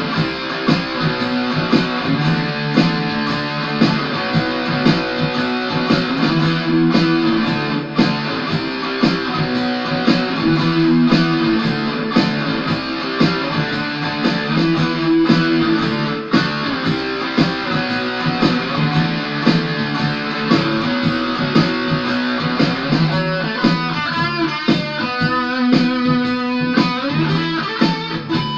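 Ibanez AS73 semi-hollow electric guitar played in the key of E, with picked notes and chords throughout and wavering bent notes with vibrato over the last few seconds.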